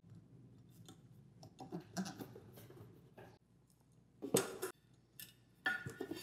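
Handling noises from assembling a ceiling fan's downrod: light clicks and rubs as the plastic cover is slid over the rod and wires, with a sharper clatter about four seconds in and again near the end.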